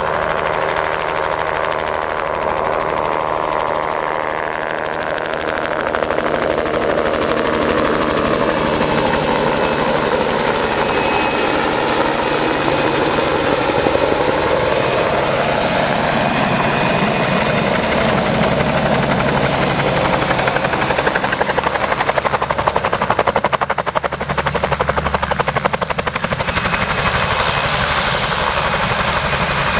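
Spray helicopter running close by: a loud, steady rapid rotor chop, with the engine whine sliding down and then back up as the helicopter moves.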